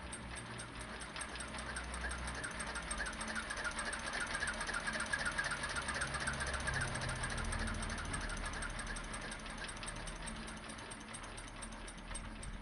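Fowler 1PA stationary engine being turned over by a generator working as its starter motor, with a rapid, even clatter that swells to its loudest midway and then eases off. This is one of the first starting attempts on the engine, which is not yet running properly on its unusual carburettor.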